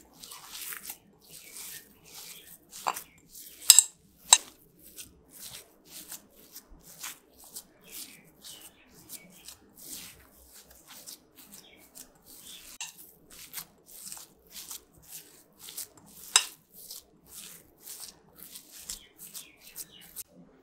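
A hand mashing crumbled fresh paneer in a ceramic bowl makes repeated short, soft squishing and rubbing strokes, a few per second. Three sharp clicks against the bowl stand out, two about four seconds in and one later on.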